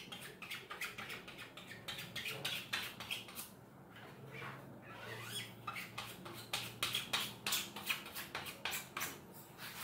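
Small squeegee scraping frame adhesive into screen-printing mesh along an aluminium frame's edge: a quick run of scratchy ticks and scrapes, thinning out briefly in the middle.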